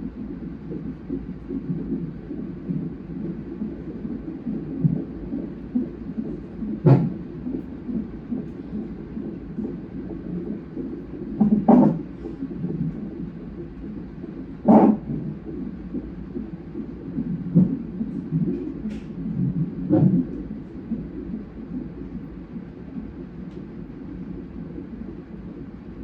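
Fetal heart monitor's Doppler speaker during a non-stress test, giving a fetal heartbeat as a rapid pulsing whoosh, broken by about five louder thumps.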